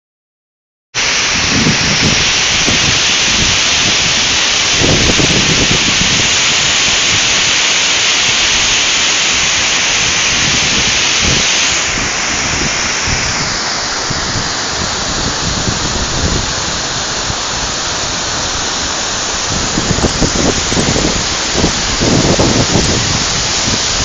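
Waterfall plunging down a rock face: a steady, loud rush of falling water that eases slightly about halfway through.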